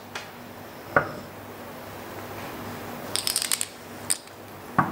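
Poker chips clicking together in the hand: scattered sharp clicks, a louder knock about a second in and a quick run of clicks about three seconds in.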